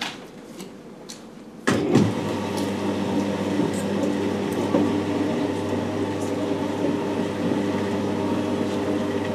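Electric motor of a vertically sliding whiteboard system moving its board panels: it starts suddenly about two seconds in, then hums steadily.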